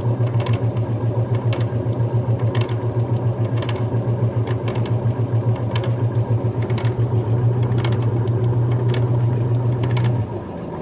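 Brastemp Luxo Plus washing machine on its spin cycle: a steady low motor hum pulsing a few times a second, with light clicks roughly once a second. The hum winds down and stops shortly before the end, as the spin finishes.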